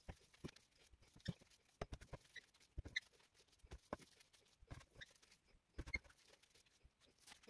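Faint, irregular squelches and pats of a moist spiced köfte mixture being squeezed and shaped in plastic-gloved hands.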